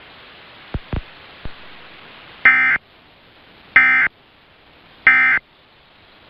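Three short bursts of EAS SAME digital data tones, the end-of-message code that closes an Emergency Alert System required monthly test, sent about 1.3 seconds apart over a steady broadcast hiss. A few brief clicks come before the first burst.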